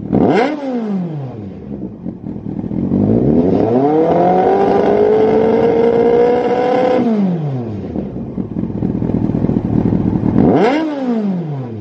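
Yamaha FZS1000's inline-four engine running through a Lextek GP8C carbon silencer, revved on the stationary bike. A quick blip of the throttle at the start, then a longer rev that climbs about three seconds in, holds high for about three seconds and falls back to idle, then another quick blip near the end.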